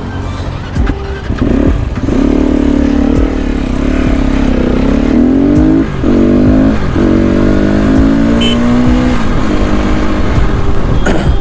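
A 300cc motorcycle engine under way, its pitch climbing and then dropping sharply several times as the rider revs and shifts.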